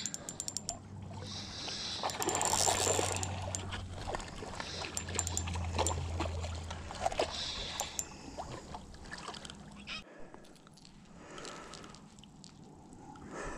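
Spinning reel wound in with quick clicking and ticking while a hooked bream splashes in the shallows as it is drawn to the shore. It all goes quieter after about ten seconds once the fish is out of the water.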